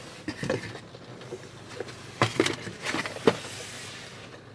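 A cardboard pizza box being handled, with a few sharp knocks and scrapes, the sharpest about three seconds in, over a faint steady hum from the parked car's cabin.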